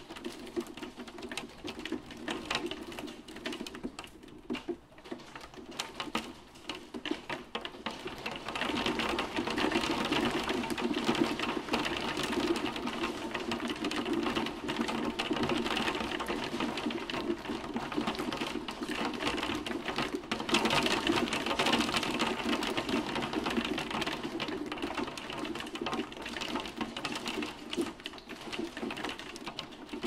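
Hailstones pelting a window pane, a dense patter of small sharp ticks on the glass. It grows heavier and louder about eight seconds in.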